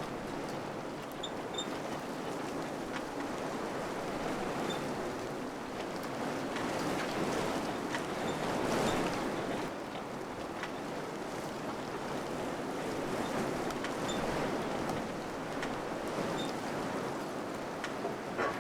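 Wind blowing in a steady rush that swells in a gust about halfway through, with scattered faint clicks.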